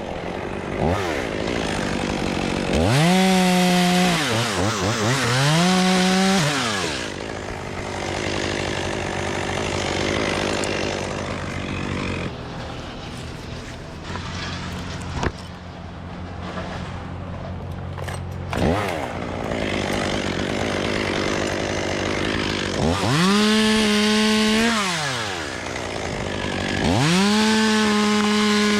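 Chainsaw engine repeatedly brought up to full throttle, held there for a second or two and let drop back. This happens four times, twice close together near the start and twice near the end, with the saw running lower in between.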